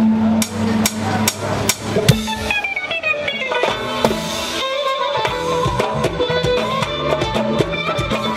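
Doira frame drums struck in sharp slaps about twice a second, with a held drone and a melody instrument playing a falling run over them: Uzbek traditional ensemble music.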